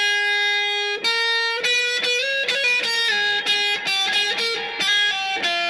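Electric guitar playing a slow single-note lead line: one long held note, then a melody of shorter notes changing about every half second.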